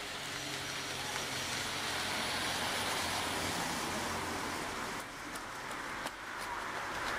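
Road traffic: a car's tyre-and-engine rush swelling as it passes, then breaking off abruptly about five seconds in, with weaker road noise after.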